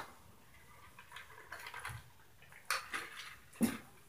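Irregular knocks and thuds from the upstairs neighbours: a sharp knock at the start, a patter of light clicks and rattles about a second in, then a few heavier knocks, the heaviest thud near the end.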